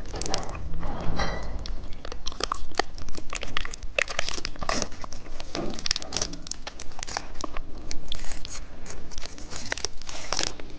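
Candy being bitten, crunched and chewed close to the microphone: a dense run of irregular crackling clicks.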